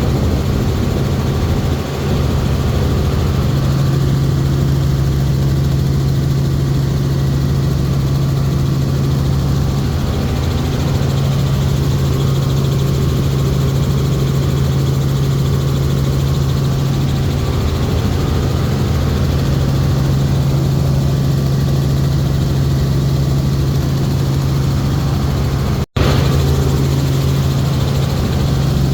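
Helicopter in flight: a steady, loud drone of engine and rotor with a strong low hum. There is a momentary break in the sound near the end.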